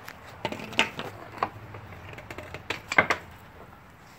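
Dog gnawing a frozen-solid deer leg: irregular sharp clicks and knocks of teeth on bone and of the leg bumping the brick, about eight of them, the loudest about three seconds in.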